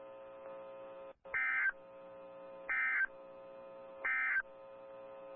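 Three short bursts of Specific Area Message Encoding (SAME) data, the raspy two-tone digital warble of the Emergency Alert System end-of-message code sent by NOAA Weather Radio, about a second and a half apart. A steady electrical hum from the radio runs under them.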